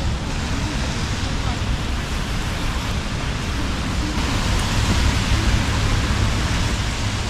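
Steady hiss of rain and traffic on a wet city street, with a deep rumble underneath; the hiss grows louder from about four seconds in.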